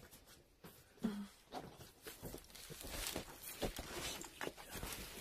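Black plastic bag rustling and crinkling quietly and irregularly as hands handle it, with a brief voice sound about a second in.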